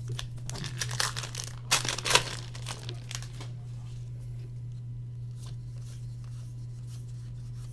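Trading-card pack wrapper crinkling and tearing as it is ripped open, in quick crackling bursts over the first three seconds or so, loudest about two seconds in, over a steady low hum.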